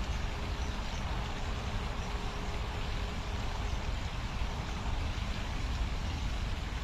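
Steady outdoor background noise, mostly a low rumble, with a faint steady hum for the first few seconds.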